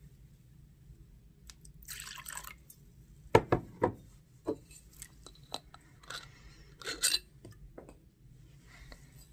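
Objects handled on a tabletop: a scatter of light knocks and clinks, the loudest a quick run of three knocks about three and a half seconds in, with short rustling bursts near two seconds and again near seven seconds.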